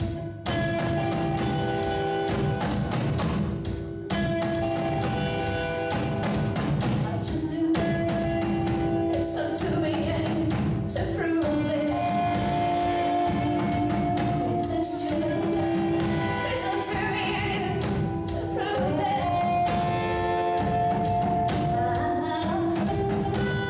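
Live rock band playing amplified through a PA: drum kit, electric guitar and bass guitar, with a woman singing over them in long held notes.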